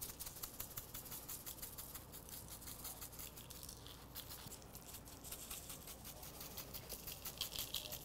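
Dry beef rub (coarse salt, pepper and garlic) shaken over a raw brisket, the granules pattering faintly onto the meat in a fast run of light ticks.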